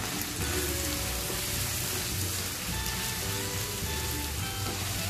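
Shallots, onion, green chillies and curry leaves sizzling in hot oil in a wok, with background music playing over it. A spatula starts stirring them near the end.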